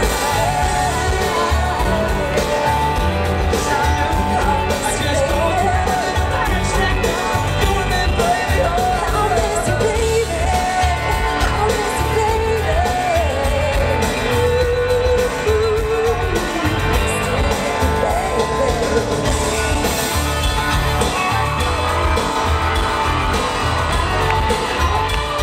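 Live country-rock band with electric guitar and drums playing a duet, a man and a woman singing together. The singing thins out about two-thirds of the way through, leaving the band and electric guitar.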